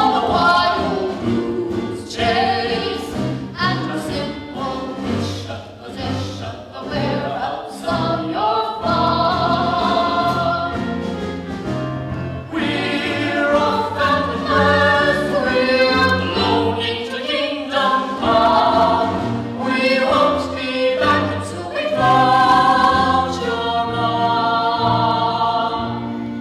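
A group of voices singing a musical-theatre number together over instrumental accompaniment.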